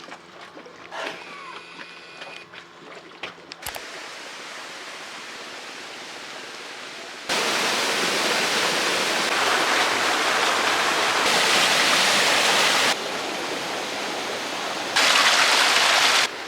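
Rushing water from a stream or waterfall, in several cut clips that start and stop abruptly at different loudness, loudest from about seven seconds in. The first few seconds are quieter, with faint scattered sounds.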